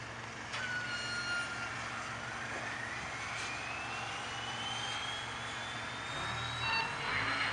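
Sound effect for an animated logo: a steady rushing hiss with a low hum, and a whistle-like tone that starts with a click about half a second in and rises slowly and steadily in pitch.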